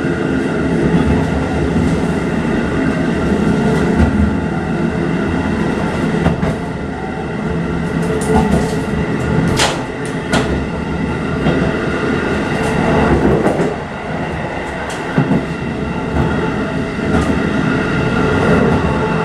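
A JR Hokkaido 711 series electric train running along the line, heard from the front of the train: a steady rumble of wheels on rail with a constant hum, and a few sharp clicks over rail joints, bunched about eight to ten seconds in.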